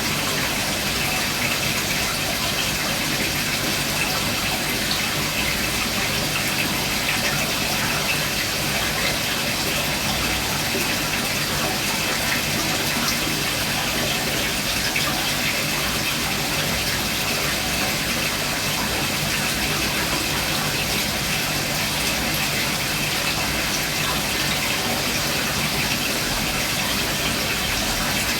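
Aquarium filter running: a steady rush of splashing, gushing water with a faint low hum underneath, unchanging throughout.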